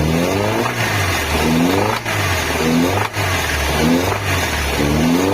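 Nissan Tsuru engine revved in short blips about once a second, each rise and fall in pitch clearly heard. The owner says it has a rod knock (biela), but it is cold and not knocking much yet.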